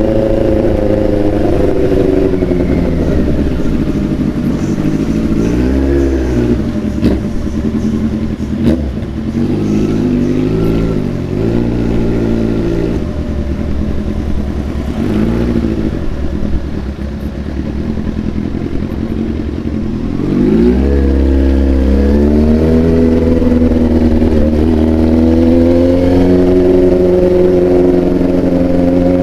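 Big sport motorcycle with a loud exhaust riding along, its revs rising and falling repeatedly through short pulls and gear changes. It runs louder and steadier from about two-thirds of the way in.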